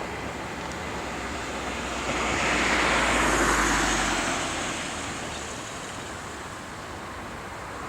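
A vehicle passes: its noise swells to a peak about three seconds in, then fades, over a steady outdoor rumble.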